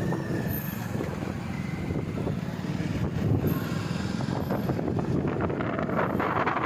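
Steady vehicle and road noise with wind buffeting the microphone.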